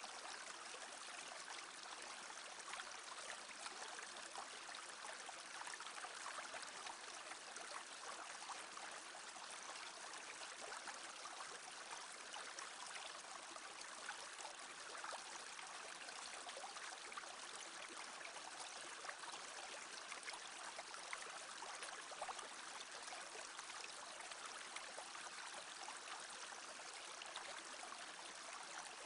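Shallow brook babbling: an even, steady rush and trickle of running water.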